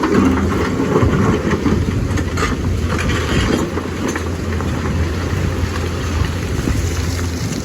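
Lonking excavator's diesel engine running steadily with a constant low hum.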